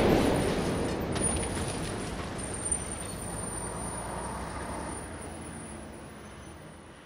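City traffic noise, a steady street din, fading out gradually to silence, with a thin high whistle over it.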